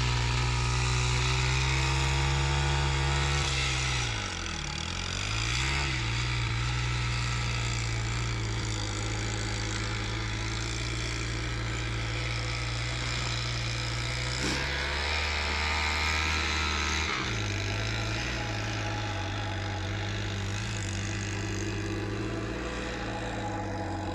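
Pit bike engine running steadily nearby. Its pitch dips and comes back up about four to six seconds in, and its low note changes again around seventeen seconds.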